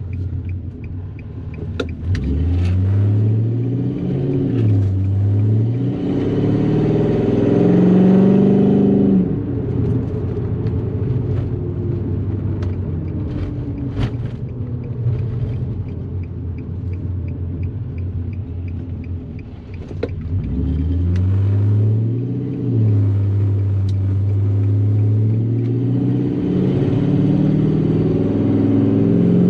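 LS V8 engine in a 2004 Infiniti G35X sedan accelerating hard twice, each time rising in pitch, dipping briefly at an upshift, then climbing again. Between the two pulls it runs steadily at a lower pitch.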